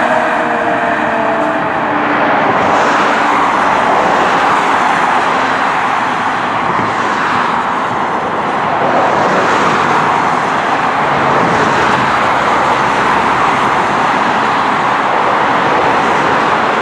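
Road traffic noise from cars passing on a multi-lane road, swelling and easing as vehicles go by. A fire truck's siren trails off into the distance in the first second or two.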